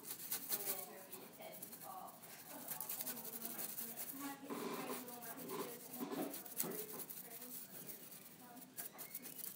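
Faint, indistinct voices talking in a small room; no words can be made out.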